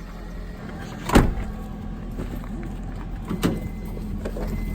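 A vehicle's steady low running hum, with one loud sharp thump about a second in and a smaller knock a couple of seconds later.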